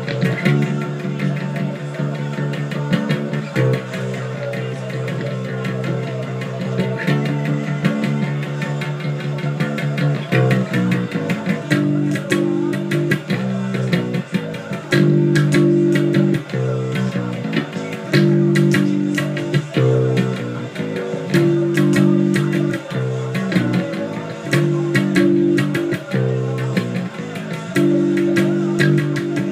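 Electric bass guitar playing a punk rock bass line along with a full-band rock recording.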